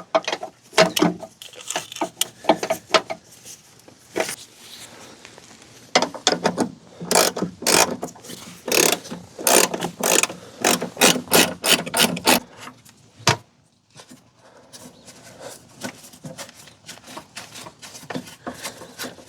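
Hand ratchet wrench clicking in runs of quick strokes as a suspension bolt is turned. A fainter stretch of clicks and handling noise follows near the end.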